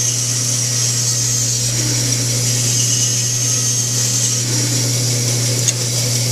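Vertical band saw running steadily and cutting a curve through a wooden block: a constant low motor hum under the high hiss of the blade in the wood. A single sharp tick near the end.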